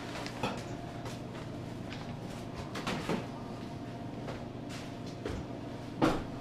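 Scattered knocks and clunks of a plastic snowmobile hood being carried and leaned against a wall, the loudest knock near the end, over a steady background hum.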